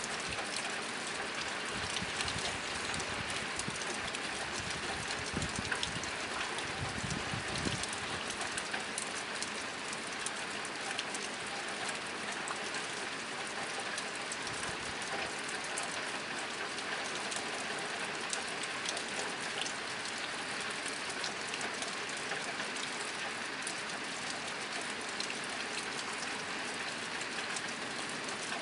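Steady rain drumming on a tin roof: a dense, even patter with countless small ticks of single drops. A low rumble rises and falls a few times in the first several seconds.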